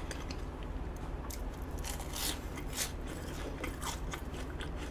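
Someone chewing a Korean-style hot dog close to the microphone: scattered soft clicks and small crunches at uneven intervals.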